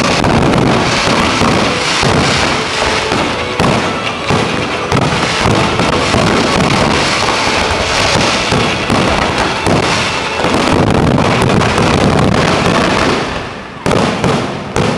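Fireworks barrage: aerial shells bursting and comets launching in rapid succession, a dense stream of bangs and booms that eases briefly near the end.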